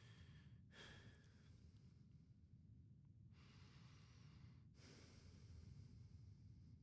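Near silence: a faint steady low hum of room tone, with a few soft breaths picked up by a headset microphone.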